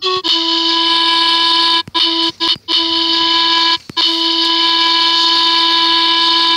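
Synthesized panpipe (zampoña) tones from a smartphone app: one short note, then a long held E (mi) that is re-tapped several times with brief breaks, the final note of the melody.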